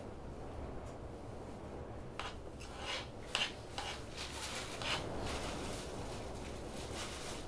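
A few short scraping and rubbing strokes of a utensil against a camp cooking pot, clustered between about two and five seconds in, over a low steady background.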